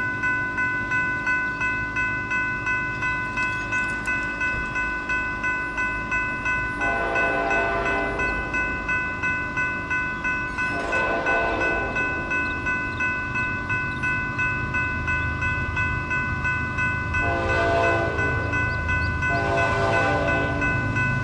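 Union Pacific freight locomotive horn sounding four blasts for a grade crossing, about a second and a half to two seconds each, over the steady rapid ringing of a crossing bell. A low rumble from the approaching train grows toward the end.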